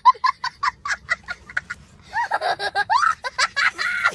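A rapid run of short, high-pitched cackling sounds, about eight a second, giving way to longer sliding squeals over the last two seconds.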